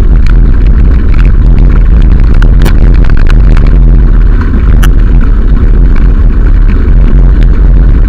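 Loud, constant wind rumble buffeting the microphone of a camera moving fast along a gravel track, with scattered clicks and rattles on top.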